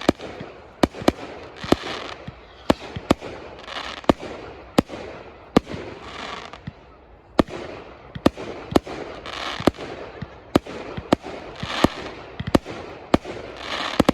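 Fireworks display: a rapid run of sharp bangs from bursting shells, roughly two a second, with short rushes of hiss and crackle between them.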